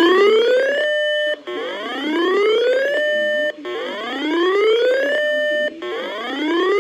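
Electronic emergency-alert tone from a broadcast warning: a whooping tone that rises in pitch for about a second and a half, holds briefly, then cuts off. It repeats about every two seconds, marking a severe thunderstorm warning.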